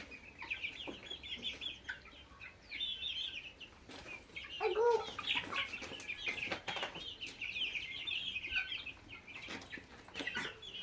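A flock of chickens clucking and peeping, with many high chirping calls overlapping and a lower call about five seconds in. Scattered sharp taps and clicks run underneath.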